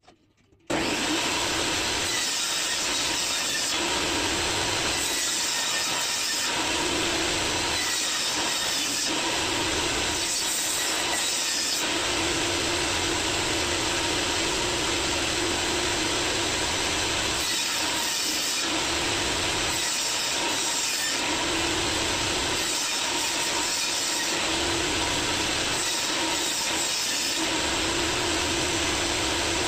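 Workshop machinery running steadily and loud, its tone shifting every second or two, starting suddenly about half a second in.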